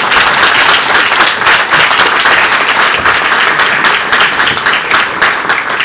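Audience applauding: loud, dense clapping from many hands.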